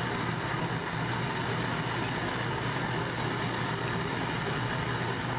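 Gas burner flame for glass bead making running steadily: an even rushing hiss over a constant low hum.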